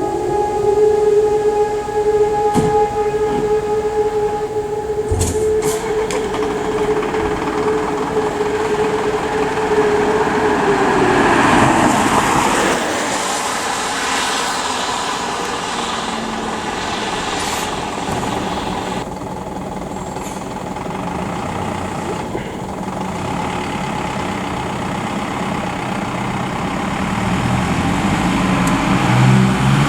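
An E57 electromechanical siren sounding the fire-brigade alarm. A steady wail winds down, falling in pitch, about eleven seconds in, and after a pause starts to wind up again near the end.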